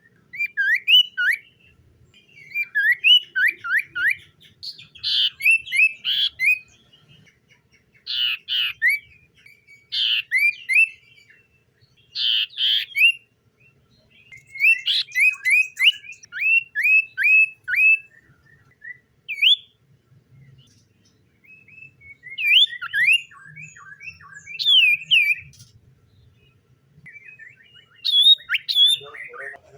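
Common iora singing: bursts of quick, rising whistled notes, four to six in a row, repeated every second or two. Harsher, rasping notes are mixed in, with a brief pause near the end.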